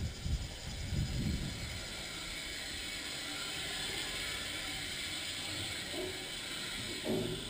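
A steady hiss, with a few footsteps on a hard floor in the first second or so.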